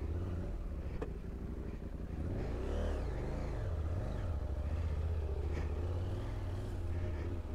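KTM 790 Adventure's parallel-twin engine running at low speed on a sandy trail, its revs rising and falling a few times near the middle. A sharp knock about a second in.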